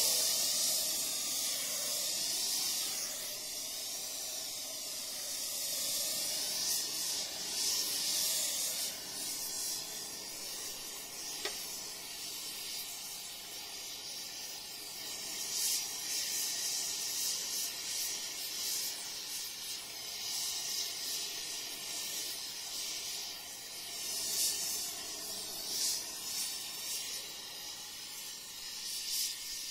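Oxy-fuel torch flame hissing steadily as it is held on the steel of an excavator stick, heating it, with brief louder flares now and then.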